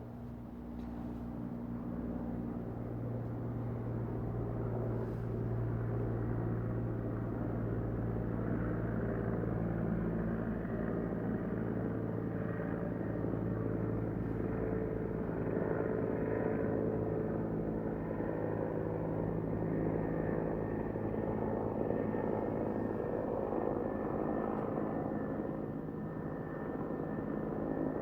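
Helicopter flying: a steady drone of engine and rotor that builds up over the first couple of seconds, then holds with slow swells in loudness.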